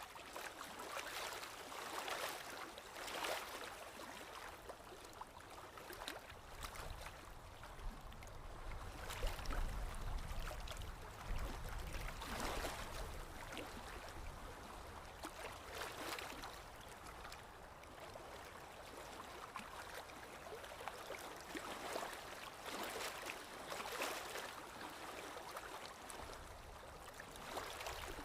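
Running water of a small stream, gurgling and splashing in irregular swells, with a low rumble for several seconds near the middle.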